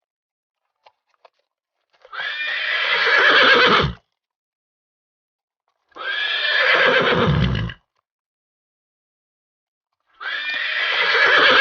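Horse neighing three times, each whinny lasting about two seconds with silent gaps between.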